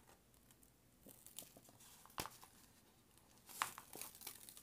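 Faint rustling and crinkling of the protective cover sheet being folded back over a sticky diamond painting canvas, with a sharp tick about two seconds in and a louder crinkle near three and a half seconds.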